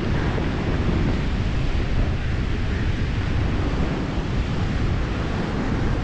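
Steady rumble of wind buffeting the microphone, mixed with the wash of ocean surf.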